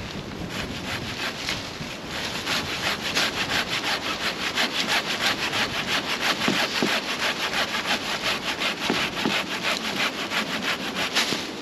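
A hand saw cutting through wood in quick, even back-and-forth strokes, getting louder over the first couple of seconds.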